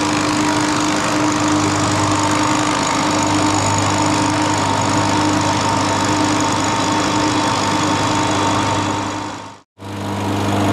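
Horizontal boring mill's spindle cutter milling the edge of a stacked plywood disc as it turns on a rotary table: a steady machining noise over a constant motor hum. The sound cuts out abruptly for a moment near the end, then resumes.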